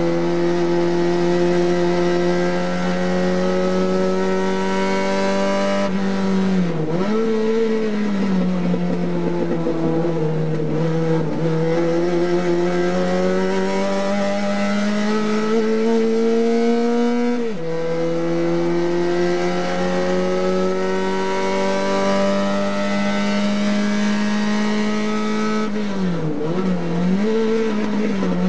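Race car engine heard from inside the cockpit, held at high revs. Its note climbs slowly along each straight and dips sharply three times, about six seconds in, a little past halfway and near the end, as the driver lifts and changes gear for the corners. Steady wind and road noise run underneath.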